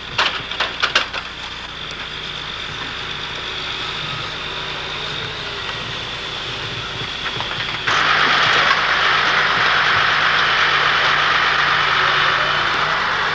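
A log truck's diesel engine runs steadily, powering its knuckleboom loader, with a few sharp knocks of logs in the first second. About eight seconds in, the sound turns abruptly louder and harsher.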